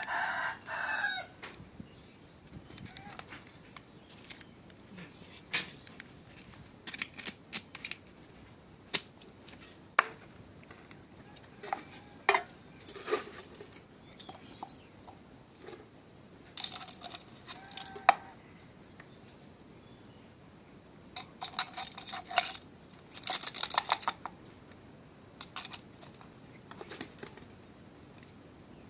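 Chickens clucking and crowing in several short bouts, among scattered sharp clicks.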